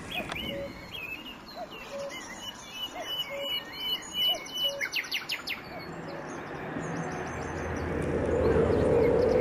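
Birds calling, with repeated high chirps and short notes. From about six seconds in a steady rumbling noise swells up and becomes the loudest sound near the end.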